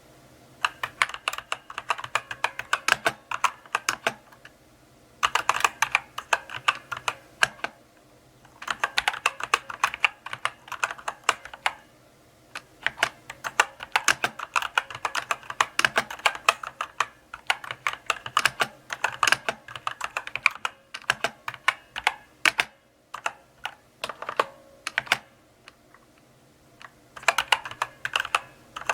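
Typing on a mechanical keyboard: runs of crisp key clicks, several a second, in bursts of a few seconds broken by short pauses.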